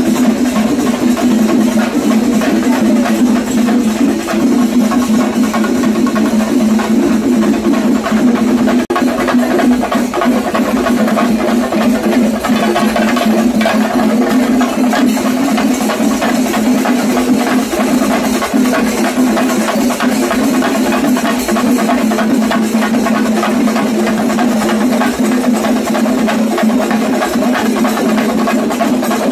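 Drum ensemble playing a fast, dense, unbroken beat.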